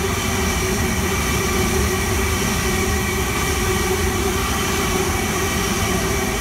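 Sydney Trains H-set (OSCAR) electric multiple unit running: a steady loud hum with a few constant whining tones over it.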